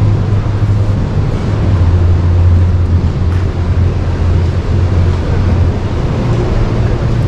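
Large exhibition hall ambience: a steady, loud low hum over a constant even wash of background noise, with no clear single event.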